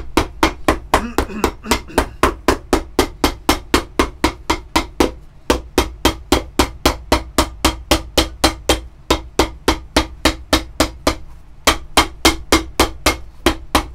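Shoemaker's hammer tapping rapidly on a leather shoe sole, about four sharp strikes a second, with two brief pauses.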